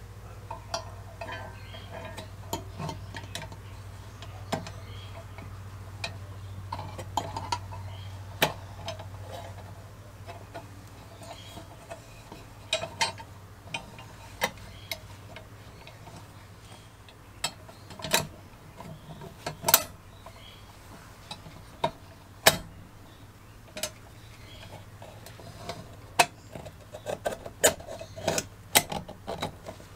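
Metal parts of a Dietz kerosene lantern clicking and tapping as they are handled and fitted together: the wire globe guard and perforated burner plate being clipped into the frame. The clicks come irregularly, a few sharper ones in the middle and a quick run of them near the end.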